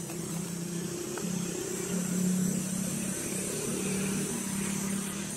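A low, steady motor-vehicle engine hum, a little louder about two seconds in, over a steady high buzz.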